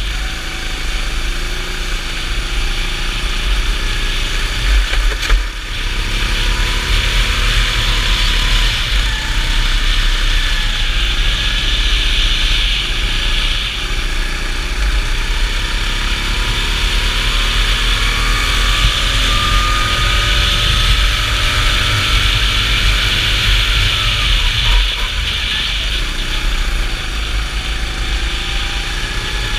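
Go-kart engine running at racing speed, its pitch rising and falling as the kart brakes and accelerates through the corners. Underneath are a heavy wind rumble on the microphone and a steady hiss from the wet track.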